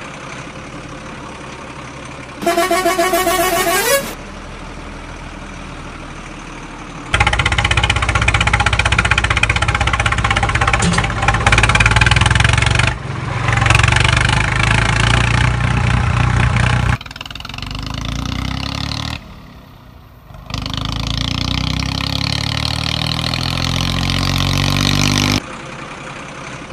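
Truck engine sounds in several segments that start and stop abruptly: a short rising tone about two and a half seconds in, then a long stretch of engine running, followed by revving that rises and falls. A quieter steady background fills the gaps.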